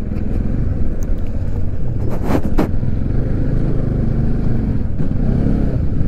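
Motorcycle engine running at low road speed, heard from the rider's seat together with wind and road noise; a short hiss about two seconds in.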